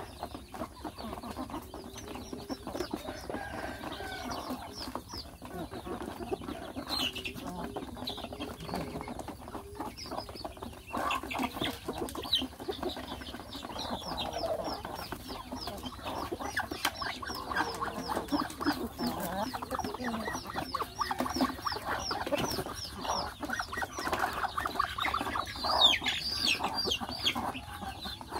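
A flock of young chickens clucking as they feed, with quick runs of high, short peeps from chicks or ducklings and the tapping of beaks pecking at feed; one peep near the end is louder than the rest.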